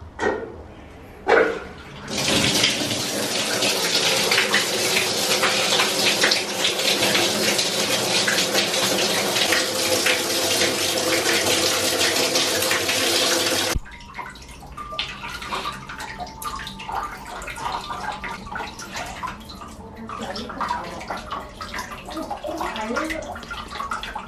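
A couple of sharp clicks, then hot-spring water gushing from a spout into an empty wooden bathtub as it fills: a loud, steady splashing rush. About fourteen seconds in it cuts off abruptly and gives way to quieter, uneven water sounds.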